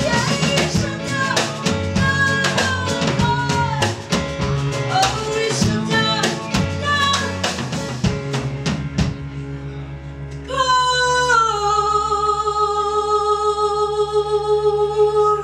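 A live band plays the closing bars of a piano-led pop song, with a drum kit keeping time under a woman singing. From about ten seconds in, the song ends on one long held note with slight vibrato that steps down a little in pitch, then settles until it stops.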